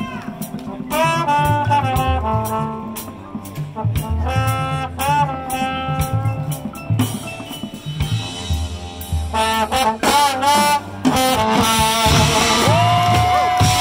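Marching band playing a jazzy passage: a trombone solo with bending, sliding notes over drum kit hits, and near the end the full brass section swells into a long held chord.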